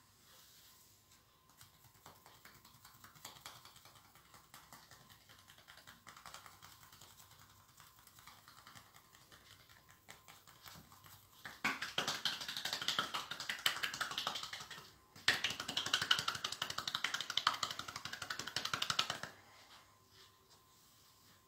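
Rapid percussive massage strokes (tapotement) with the hands held together, slapping the bare skin of the shoulders and back many times a second. Faint and scattered at first, then much louder in two long runs of quick slaps with a brief pause between, stopping abruptly.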